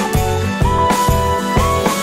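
Instrumental background music: a sustained melody over a steady drum beat.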